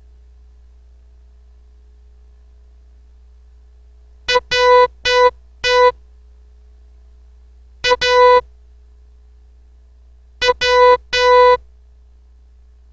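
Morse code practice tone, a buzzy pitched beep, keyed in three letters: one short and three long, one short and one long, then one short and two long, spelling J, A, W. The letters are separated by pauses of about two seconds.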